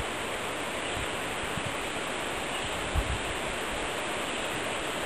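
Steady, even hiss-like rushing noise, with a single low thump about three seconds in.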